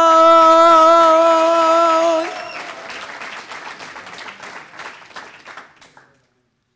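A male singer holds one long, steady sung note into a microphone, ending about two seconds in. Studio audience applause follows, fading away and cutting to silence about six seconds in.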